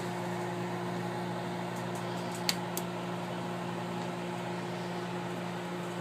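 Microwave oven running with a steady hum. Two sharp clicks, close together, about two and a half seconds in.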